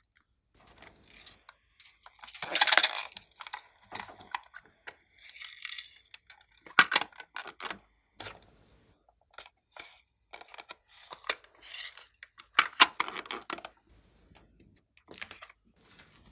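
Clear slime being squeezed and worked by hand, making sticky crackling and popping clicks in irregular bursts.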